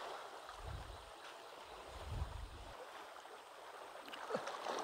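Steady rushing of a flowing jungle river, with two soft low bumps a little under a second and about two seconds in.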